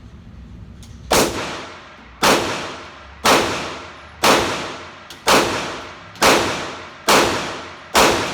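Eight 9mm pistol shots fired at a steady pace of about one a second, starting about a second in, each a sharp crack followed by a short ringing tail.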